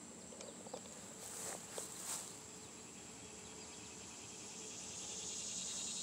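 Steady high-pitched insect song in the grass, with a couple of soft rustles about a second and a half and two seconds in.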